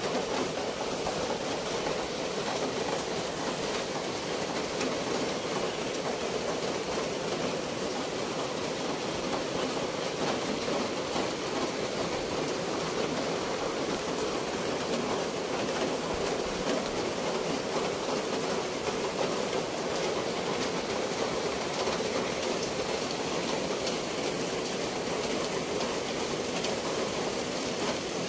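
Steady, even rushing noise of outdoor nature ambience, with no distinct events or changes.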